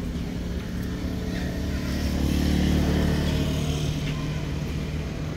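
A motor vehicle's engine humming steadily, growing louder to a peak about halfway through and then fading as it passes.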